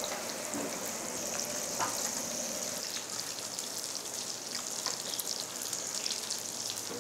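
Grilled intestines (gopchang and daechang) sizzling in their fat on a tabletop grill pan: a steady hiss with scattered small crackles.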